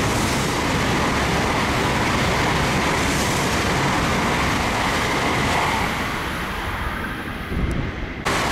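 N700-series Shinkansen bullet train passing through the station at about 185 km/h, the speed limit on the curve: a loud, steady rush of wheels and air. It fades about six seconds in as the last cars go by, then cuts off suddenly near the end.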